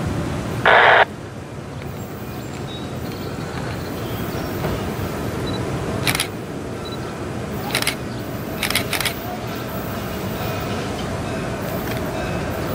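Outdoor ambience with a steady low rumble of wind on the microphone. About a second in, a brief loud burst of noise cuts across it, and a few short sharp clicks come later.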